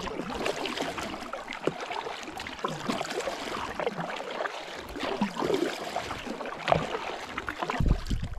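Kayak being paddled: the paddle blades dip and splash, with water dripping and swishing in an irregular run of small splashes. A low rumble comes in near the end.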